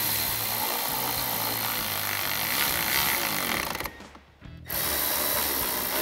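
Cordless electric ratchet with a 10 mm socket running as it drives the mirror-mount bolts tight. It runs for about four seconds, stops for about half a second, then starts again.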